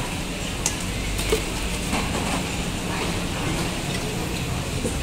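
Food-stall kitchen background: a steady low hum with a few faint, short clicks and clinks as bowls and utensils are handled.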